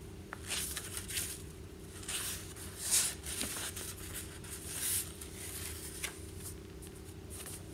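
Faint rustling of book pages being handled, in several short soft bursts, over a steady low electrical hum.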